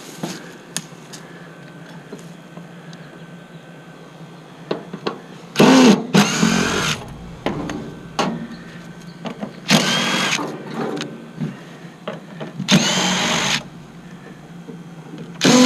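Impact driver running in several short bursts, each with a whining motor and a hammering rattle, loosening the compressor's mounting bolts in a heat pump. Light clicks of handling come first.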